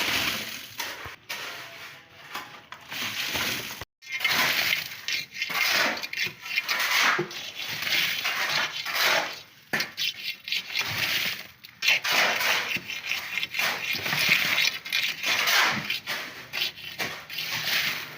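Repeated gritty scraping and crunching of building work, in irregular strokes, with a sudden break about four seconds in.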